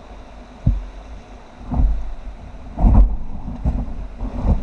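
Rushing whitewater around an inflatable raft running rapids, with about five irregular low thuds and splashes as the raft meets waves, and wind buffeting the microphone.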